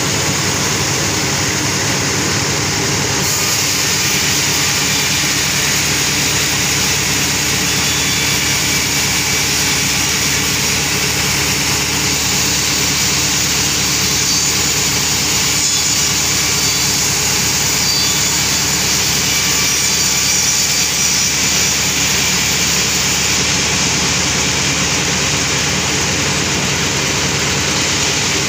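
Sawmill saw and its engine running steadily. It makes a constant mechanical hum with a strong hiss on top; the highest part of the hiss brightens about three seconds in and fades again near the end.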